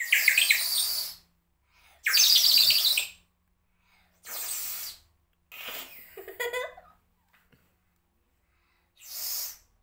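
Water-filled toy bird whistle blown in about five separate breaths, each giving a bright, warbling chirp like birdsong.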